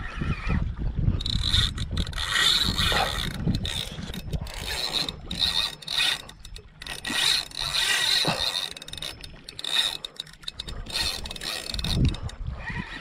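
Shimano Saragosa SW10000 spinning reel being cranked to wind in line, its gears whirring steadily, with a couple of brief pauses in the winding.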